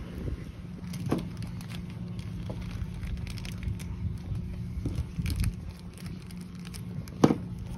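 Small clicks and crinkling as loose ball bearings and a plastic bag are handled and the balls are fitted back into a sailboat traveler car, with one sharper click near the end. A steady low hum runs underneath.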